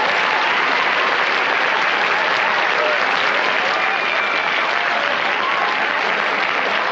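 Studio audience applauding, a steady, dense clapping that holds at one level throughout.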